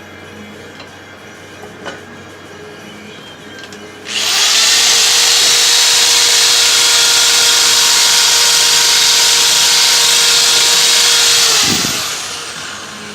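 Handheld power tool motor running at a steady high speed for about seven and a half seconds with a constant whine and hiss, then released and winding down.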